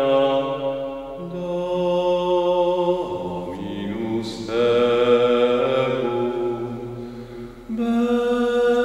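Slow sung chant, with voices holding long notes and moving to a new pitch every two or three seconds.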